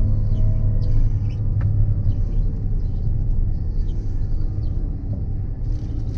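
CLAAS Lexion 770 combine harvester running steadily while harvesting: a low, even rumble with a few steady machine tones over it.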